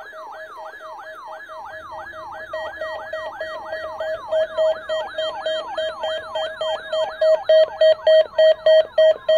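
Electronic test signal: a siren-like tone sweeping downward about three times a second, over a rapid pulsed beep that grows much louder in the second half.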